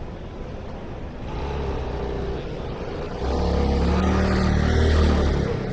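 A motor vehicle passing close by: its engine rumble builds from about a second in, grows much louder around three seconds in, then drops away near the end.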